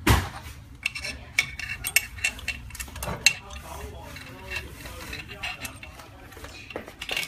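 Metal parts of a vacuum laminating machine being handled: a heavy knock at the start, then a run of light metallic clicks and clinks, with one sharp click a little after three seconds.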